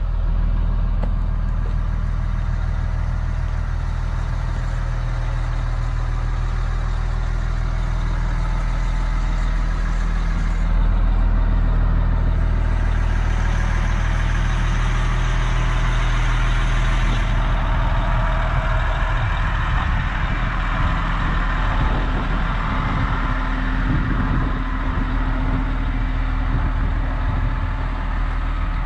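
Caterpillar 345B excavator's diesel engine idling steadily.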